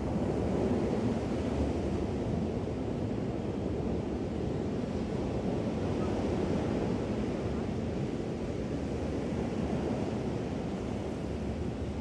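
Small ocean waves washing up on a sandy beach: a steady, low surf noise.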